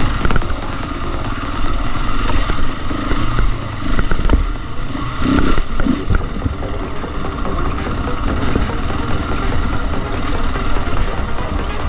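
Motorcycle running under way on a trail ride, its loudness swelling and easing, over a heavy low rumble.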